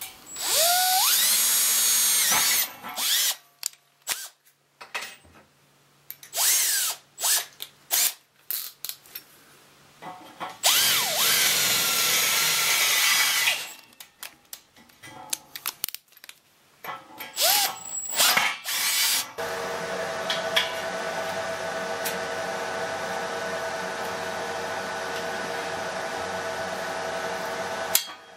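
Electric drill boring through square steel tube, run in bursts on the trigger: it whines up to speed at the start, runs in several short blips, and makes one long cut of about three seconds in the middle. For the last third a different steady hum with a hiss takes over.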